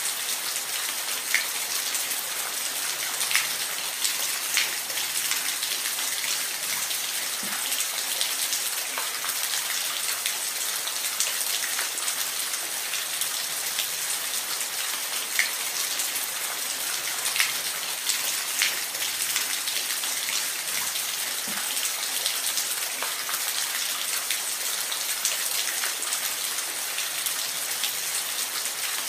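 Steady rain falling in a forest: an even hiss, with single close drops ticking now and then.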